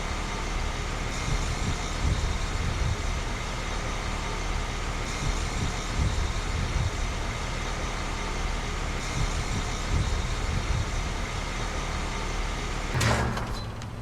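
A 2-ton Grandaire Sentry central air conditioner condensing unit running steadily: Copeland scroll compressor hum and condenser fan noise with a faint steady whine. A brief loud noise near the end, after which the sound drops away.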